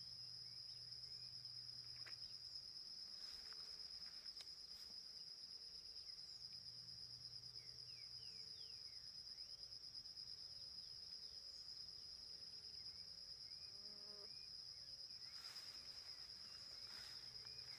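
Faint, steady trilling of insects on one high unbroken note, with a few soft scattered chirps.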